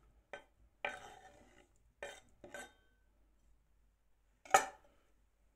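A knife scraping diced tomatoes off a wooden cutting board into a glass bowl: about five short scrapes and knocks against board and glass, one with a brief glassy ring, and the loudest knock about four and a half seconds in.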